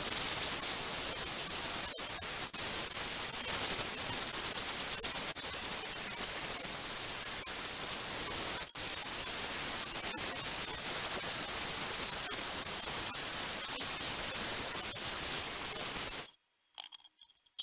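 Angle grinder with a sanding disc running against the fiberglass hull of a small sailboat: a steady, dense grinding noise, played sped up, with a few momentary breaks. It cuts off near the end.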